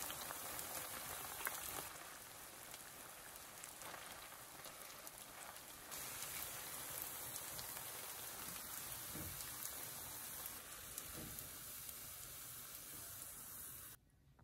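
Shredded-potato pancakes frying in shallow hot oil in a pan: a steady sizzling hiss full of small crackles and pops. It cuts off suddenly near the end.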